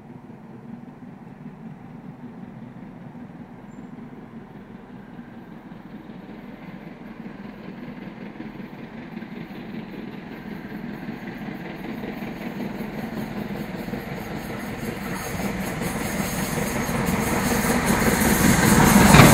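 Britannia class 4-6-2 steam locomotive and its train approaching, growing steadily louder over about twenty seconds and sharply louder near the end as it draws close.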